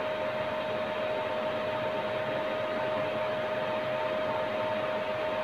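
Steady fan-like hiss with a constant mid-pitched hum, unchanging throughout.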